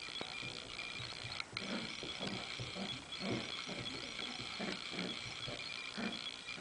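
Two Cavalier King Charles Spaniels play-fighting, making short growls and grunts about two or three times a second, with one sharp click about a second and a half in.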